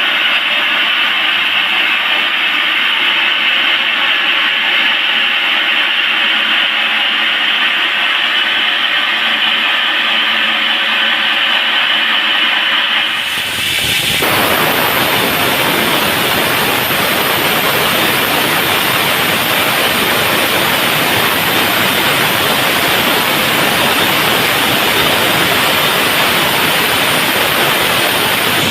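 Sawmill saw running loudly as the teak log is milled, a steady mechanical noise. About halfway through it changes abruptly to a broader, hissing roar.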